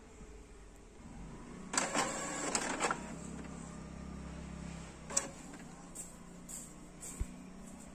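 Epson L3110 inkjet printer starting a print job: a burst of mechanical rattling and clicking about two seconds in, then a steady motor hum, with a few single clicks later on.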